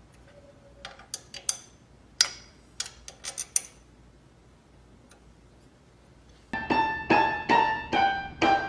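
Sharp metallic clicks and taps in the first few seconds: a monkey's tool striking car-engine parts. About six and a half seconds in, keyboard notes start, roughly two a second, each ringing and fading.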